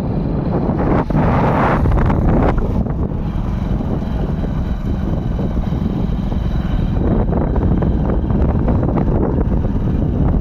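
Loud wind buffeting the microphone: a continuous low rumbling noise that swells and dips.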